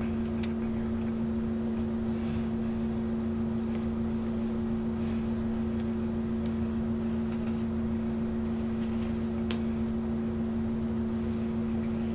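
Steady mechanical hum at a constant pitch, with a low rumble beneath it, like a fan or motor running. A single light click comes about nine and a half seconds in.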